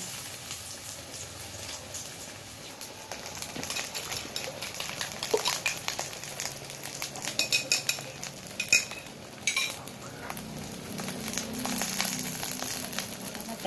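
Eggplant slices being set and moved in an aluminium wok on a gas burner: a steady low sizzle and hiss, with scattered clicks and a few ringing clinks of a metal spoon against the wok about halfway through.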